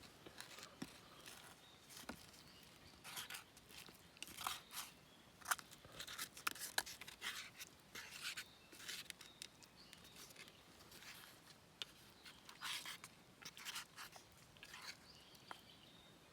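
Faint, irregular rustling and small clicks at an uneven pace, with a few brief quiet spells.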